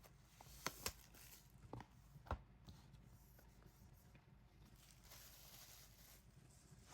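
Faint handling of paper and plastic album packaging: a few light taps and clicks in the first couple of seconds, then soft rustling.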